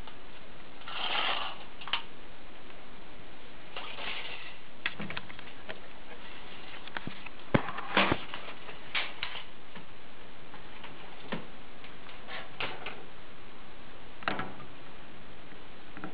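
Scattered light clicks and knocks, with a few short rustles, over a steady hiss. The loudest clicks come in a quick cluster about halfway through.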